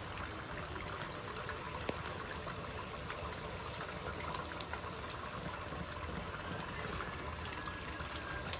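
Hot oil sizzling steadily around egg rolls deep-frying in an electric skillet, with a few faint clicks of metal tongs against the rolls and pan.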